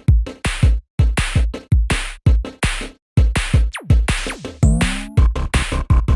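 Electronic music played through a Simbadda CST-6100N speaker set: a fast run of heavy drum-machine kicks and bass hits, with a falling sweep about four seconds in and gliding synth tones just after.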